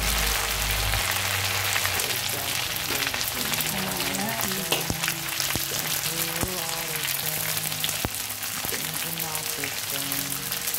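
Dried anchovies sizzling as they deep-fry in hot oil in a wok, with a few sharp clicks of a metal spatula against the pan. A melodic background tune plays under it.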